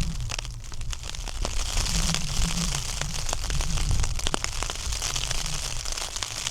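Rain spattering in scattered sharp ticks, with gusting wind rumbling over a steady hiss.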